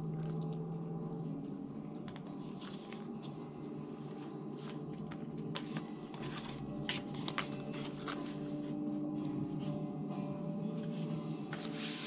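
Close-up eating sounds: chewing and soft mouth noises, then scattered clicks and light crackles of disposable plates and a bowl being handled and shifted. A faint steady hum runs underneath.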